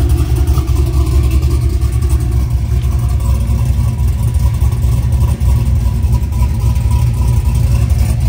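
Cammed 370-cubic-inch LS V8 truck engine running steadily with a choppy, uneven low rumble through its dual 3-inch exhaust.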